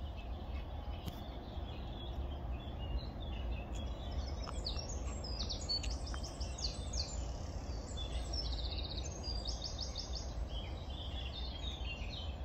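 Small songbirds singing in quick, rapidly repeated trilling phrases over a steady low background rumble.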